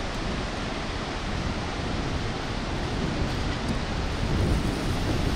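Steady rushing noise: the river's rapids in the gorge below, with wind buffeting the microphone.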